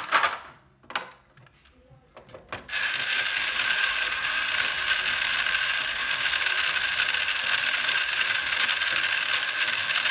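Vintage Fisher-Price Power Workshop toy drill turning a plastic screw into the toy workbench, its gear mechanism making a fast, even ratcheting clatter. Before that there are a few separate plastic clicks as the bit is set on the screw. The clatter starts a little under three seconds in and runs steadily after that.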